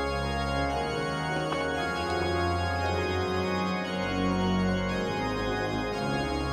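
Organ music playing slow, held chords over a deep bass line that steps lower about four seconds in.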